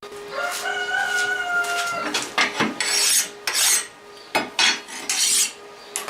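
A rooster crows once, a single drawn-out call of under two seconds, followed by a series of about seven short scraping strokes. A faint steady hum runs underneath.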